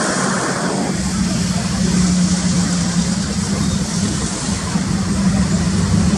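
Jet engines of a twin-engine airliner climbing out after takeoff: a steady roar with a low hum beneath a hiss. A brighter rushing layer cuts off about a second in.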